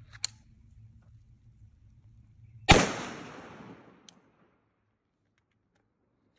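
One shot from an AR-15-style rifle firing a tracer round, about two and a half seconds in, its echo dying away over about a second. A sharp click comes just after the start, and a faint click follows the shot.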